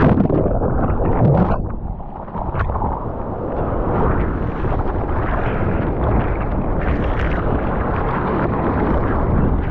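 Ocean water rushing and splashing around a GoPro in the surf, with wind on its microphone: a steady, loud, noisy rush that eases briefly about two seconds in.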